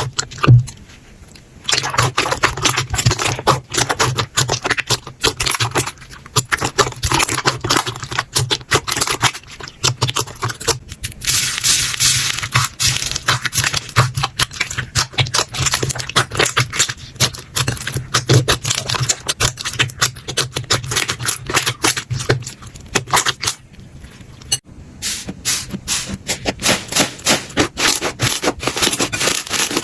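Slime being squeezed, poked and stretched by hand, making dense, rapid clicks, crackles and sticky pops, with two brief pauses, just after the start and about three quarters of the way through.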